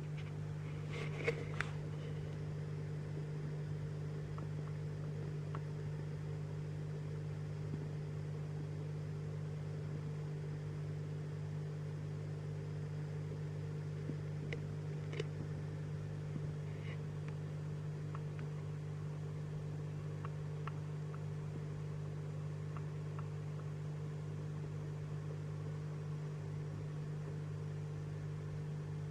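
Steady low mechanical hum with a few light clicks, a couple about a second in and a few more around fifteen seconds.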